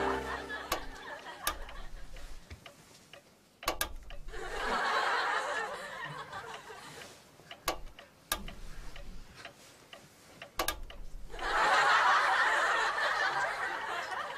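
Studio audience laughing in two swells, the second the longer, with scattered sharp clicks and knocks between and during them.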